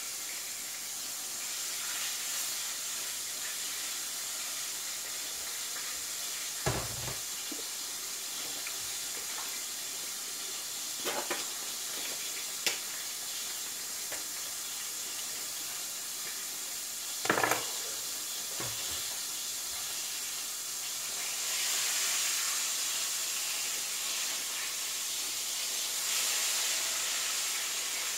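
Battered fish frying in hot oil in a pot, a steady sizzle that grows louder about three-quarters of the way through. A few sharp knocks of a utensil against the pot cut in along the way.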